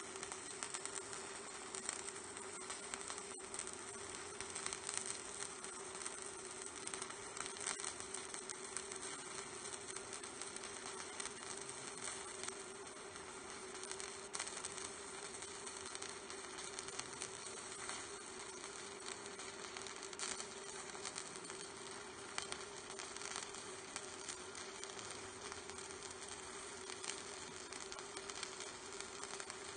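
Stick (MMA) welding arc from a Mächtz MWM-280 D inverter burning a 3 mm electrode at about 130 A: a steady crackling sizzle with a constant buzz under it. The arc keeps burning evenly without breaking off.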